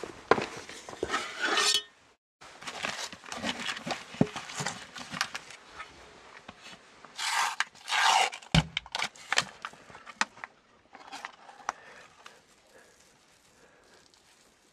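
Paper packaging crinkling and rustling as a sheet of dough is peeled out of its paper wrapper onto a cast iron pan, with scattered clicks and knocks of camp gear being handled and one dull thump about halfway through. The handling grows faint near the end.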